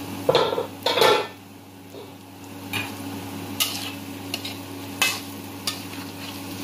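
A slotted spatula scraping and stirring diced potatoes and carrots in a wok, with a light sizzle from the simmering liquid. Two louder clatters about a second apart near the start, as the wok's lid is taken off, then short scrapes against the wok about once a second.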